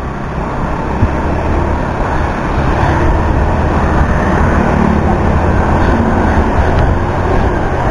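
Wind rushing over an action camera on a moving motorbike, with engine and road noise beneath, growing a little louder over the first few seconds and then steady.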